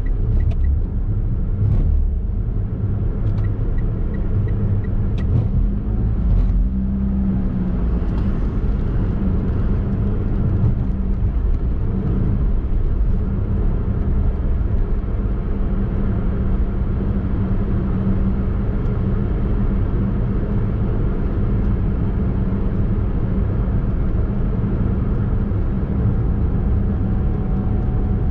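Daihatsu Mira e:S three-cylinder kei car being driven along a road: a steady engine and tyre rumble, with a few short clicks in the first several seconds.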